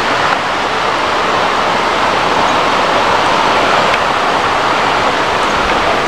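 Steady rush of water, an even hiss that holds at one level without a break.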